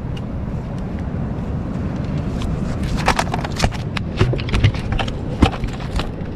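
Low wind rumble on the microphone, with a run of irregular sharp knocks and taps starting about two and a half seconds in and stopping shortly before the end.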